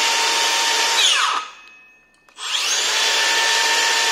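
Makita DHS660 18V brushless cordless circular saw spinning free with no load. About a second in its whine falls away in under half a second as the electric brake stops the blade once the trigger is released. A second later the saw is started again and its whine rises quickly to full speed and holds.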